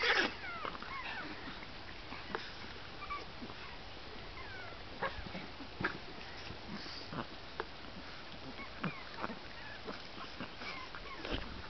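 Puppies giving short, high whimpers and squeaks now and then, most near the start, with scattered light taps and scuffs as they squirm about under a hand.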